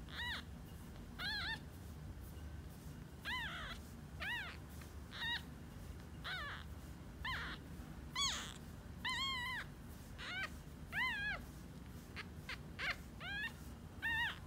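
Newborn tabby kitten mewing over and over: short, high cries about once a second, each rising then falling in pitch.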